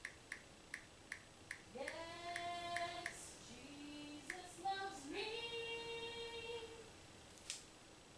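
A high voice singing long held notes that slide up into pitch, after a light ticking beat of about three ticks a second.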